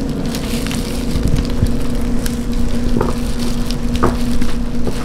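Food sizzling and crackling in hot oil over a steady low hum of kitchen equipment, with a couple of brief utensil clinks about three and four seconds in.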